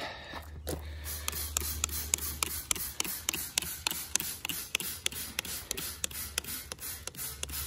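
Handheld plastic trigger spray bottle squeezed rapidly, several short sprays a second, misting liquid onto galvanized corrugated roofing metal.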